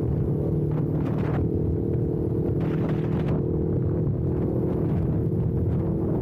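Kawasaki Ninja 400's parallel-twin engine running at a steady speed, buried under heavy wind rumble on an action camera's built-in microphone, with two brief louder gusts about one and three seconds in.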